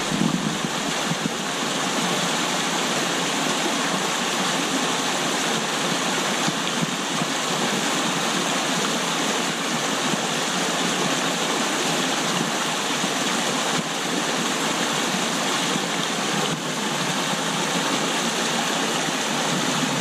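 Small stream rushing and splashing over mossy rocks in a short white-water cascade: a steady rush of flowing water.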